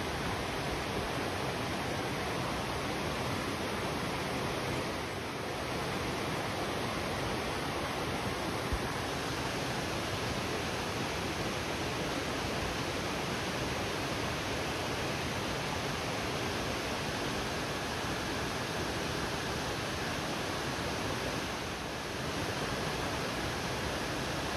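Mountain stream rushing and splashing over boulders: a steady, even roar of water.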